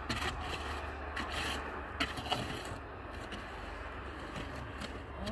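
A run of short scraping and rubbing noises, several in a row in the first half and fainter ones after, over a steady low rumble.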